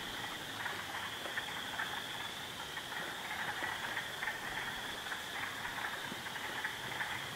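A steady high-pitched chorus of calling animals, with faint scattered clicks and rustles.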